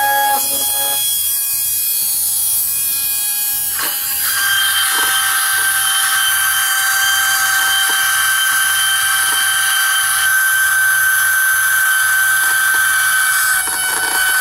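JG Blue airsoft gearbox motor running flat out while submerged in a jar of distilled water to flush dust and dirt out of it: a loud, steady high whine. About four seconds in there is a click, then the sound turns hissier and the whine drops slightly in pitch.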